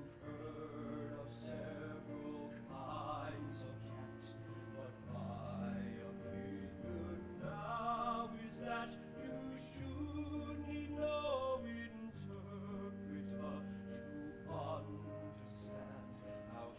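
Musical theatre song: a male voice singing slow, sustained lines with vibrato over instrumental accompaniment, with long held bass notes that change every second or two.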